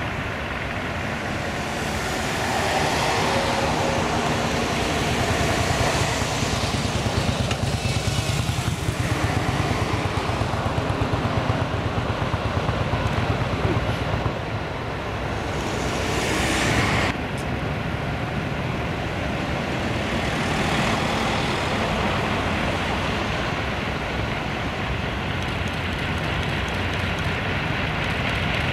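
Wright R-3350 radial piston engines of a Lockheed L-1049 Super Constellation running on the ground during engine start-up, a loud deep rumble with exhaust smoke from the newly started engines. A regular pulsing runs through the sound for several seconds midway, and a short rush of noise cuts off abruptly a little past halfway.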